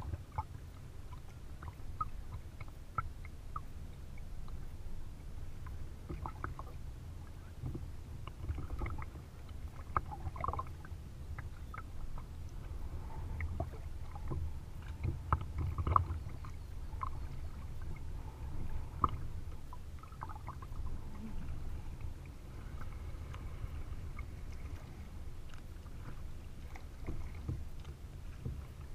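Kayak being paddled with a double-bladed paddle: small irregular splashes and drips as the blades dip and lift, and water lapping at the hull, with a few sharper splashes. Under it runs a low steady rumble of water and air against the bow-mounted camera.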